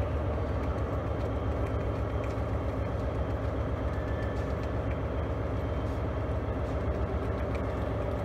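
Steady low rumble and hum of a railway station platform, with trains standing at the platforms and no train passing.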